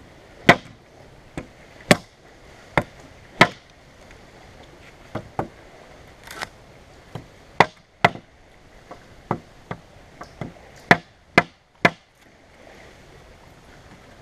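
Knife blade chopping into a wooden stick: about twenty sharp wooden knocks at an uneven pace, some much louder than others, stopping near the end.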